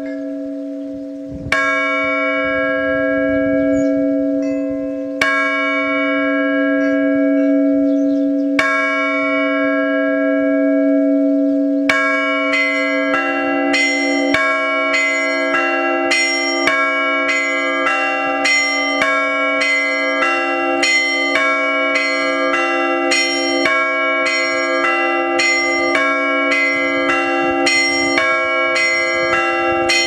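Russian church bells rung from ropes by a single ringer. First come three slow single strokes about three and a half seconds apart, over a low bell's long hum. Then, from a little before halfway, a fast, even peal of smaller bells at two to three strokes a second rings out over the low bell.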